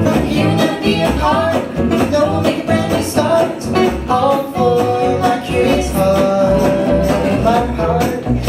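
Live band playing: a man and a woman singing together over strummed guitars and an upright bass keeping a steady beat.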